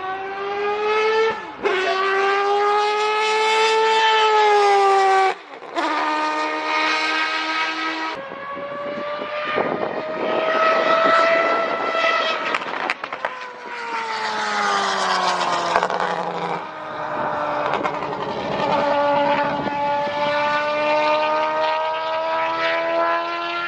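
Historic Formula 1 car engine revving hard under full throttle. Its pitch climbs and then drops sharply at a run of quick gear changes, with a brief lift off the throttle about five seconds in.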